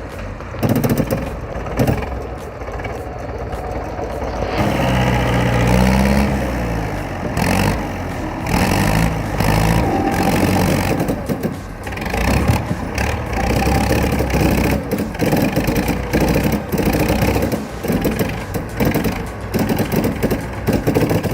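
Heavy vehicle's engine running under load, revving up and down for several seconds, with many short knocks and clatter over it.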